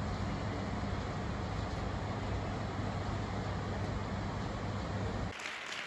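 Steady outdoor rumble of distant road traffic with a low hum. About five seconds in it cuts abruptly to an audience applauding.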